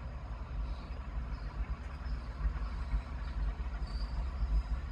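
Large bulldozer's diesel engine running with a steady low rumble.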